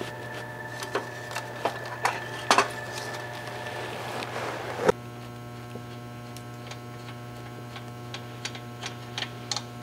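Metal clinks and knocks as a clutch pressure plate is shifted and handled against a dual mass flywheel, over a steady hum. A sharper knock comes about five seconds in, followed by lighter ticks.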